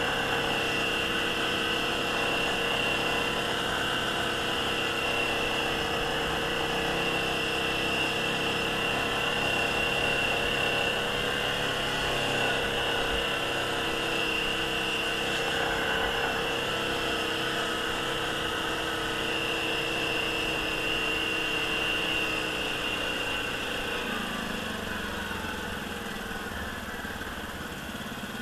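ATV engine running at steady speed, then the engine note drops about four-fifths of the way through as the machine slows.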